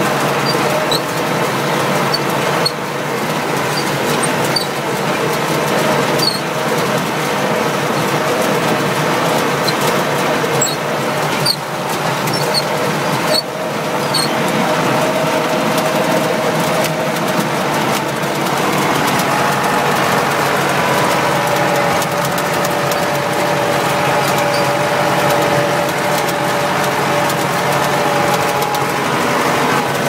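Massey Ferguson 168 tractor's four-cylinder diesel engine running under load while a McCormick International small square baler works behind it, its pickup and plunger clattering in a fast, continuous mechanical rattle. The engine note shifts slightly partway through.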